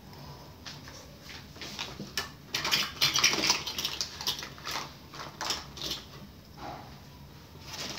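Writing by hand on paper: a run of short, scratchy strokes with small taps and knocks, busiest from about two and a half to four and a half seconds in.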